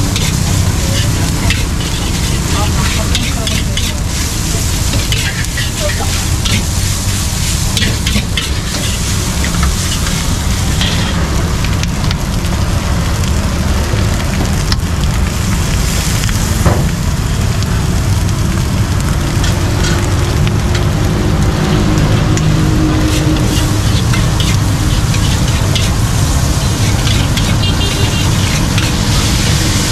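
Egg fried rice sizzling in a wok as it is stirred and scraped with a metal spatula, with frequent clinks and scrapes of metal on the wok over a steady frying hiss.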